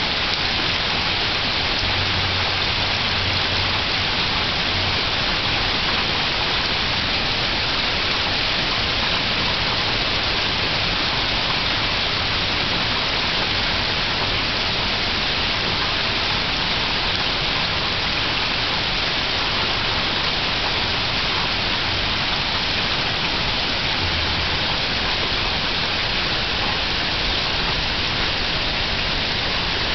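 Gentle rain falling steadily on the leaves of woodland trees, an even hiss that does not let up.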